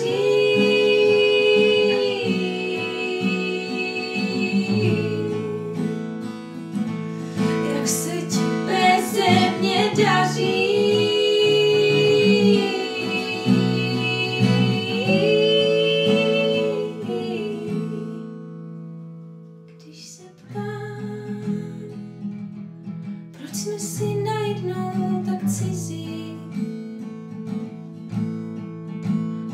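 A woman singing a slow ballad in Czech over acoustic guitar, holding long notes. About two-thirds of the way through the voice stops and the guitar fades almost away, then the strumming resumes and the singing comes back.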